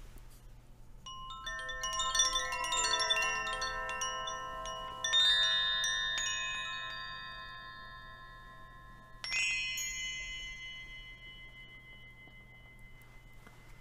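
Metal chimes ringing at many different pitches. A cascade of overlapping strikes begins about a second in, two more groups of strikes come in later, and each rings on and slowly fades.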